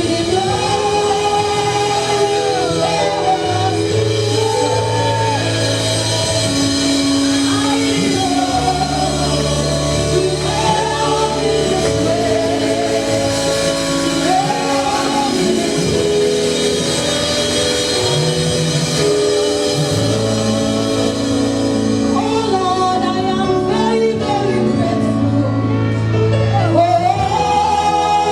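Live gospel music: a singer's voice in melodic phrases over a band with sustained keyboard chords and a bass line, in a large hall.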